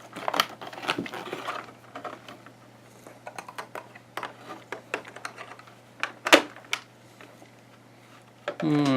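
Scattered sharp plastic clicks and taps as a toy figure is worked free of its packaging with an unboxing tool, the loudest click about six seconds in. Near the end a voice starts humming a tune.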